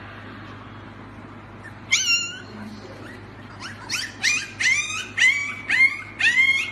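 Husky puppy making high-pitched yips: a single call about two seconds in, then a quick run of short yips, about two a second. Each yip jumps up in pitch and then levels off. A faint steady hiss sits under them.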